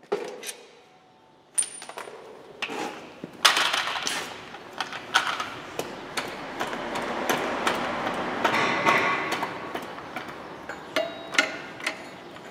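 Metal clinks and clanks of hand tools on steel car parts while a gearbox is being unbolted. A dense run of rapid rattling fills the middle few seconds, among scattered single knocks.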